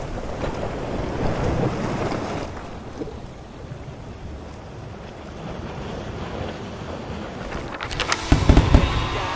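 Surf washing onto a beach, rising and falling, with wind on the microphone. About eight seconds in, a run of heavy low thumps and crackle breaks in.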